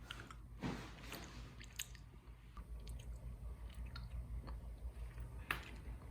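Faint scattered clicks and a few brief crackly noises over a steady low hum, with one sharper click near the end.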